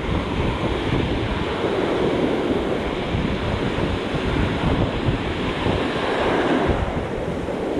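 Ocean surf breaking and washing up the sand in foamy sheets, a steady rushing wash, with wind buffeting the microphone in low rumbles.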